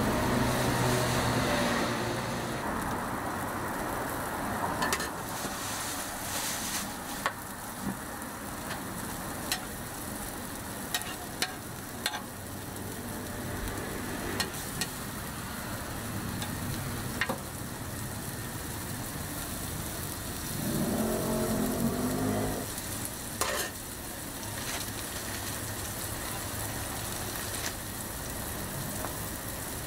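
Shredded cabbage, carrot and egg patties frying in oil on a flat steel griddle: a steady sizzle, with a few sharp ticks scattered through it. About two-thirds of the way in, a low pitched hum rises over the sizzle for about two seconds.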